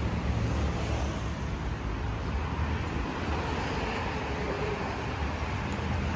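Steady road traffic noise from cars passing on a busy multi-lane road, a continuous low rumble with no sudden sounds.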